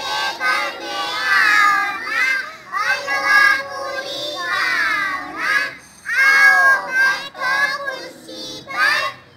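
Young children singing a nursery rhyme, their pitch rising and falling in short sung phrases.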